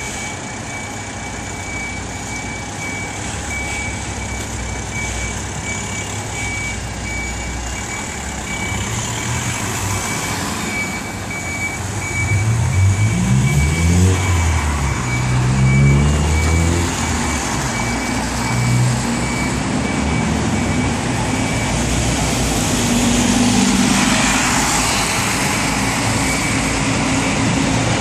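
Heavy truck's reversing alarm sounding in repeated high beeps over its idling diesel engine. About halfway through, the engine revs up twice in rising sweeps, the loudest part. The beeping stops about three-quarters of the way in, leaving traffic engine noise.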